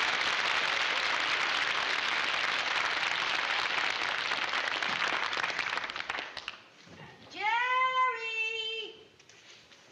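Studio audience applause that fades out about six seconds in, followed by a high voice holding one drawn-out note for about a second and a half.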